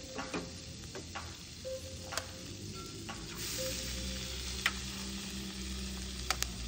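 Eggs frying in a steel frying pan over a charcoal grill, a steady sizzle that grows louder from about three seconds in. A few sharp clicks stand out, a close pair near the end as an eggshell is tapped with a knife.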